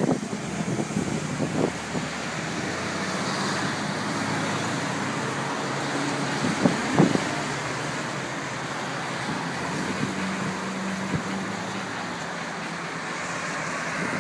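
Street traffic noise from passing cars, with two short knocks about seven seconds in.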